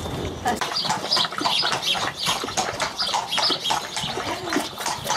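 Small birds chirping in quick, busy runs of short calls, with a few short knocks among them.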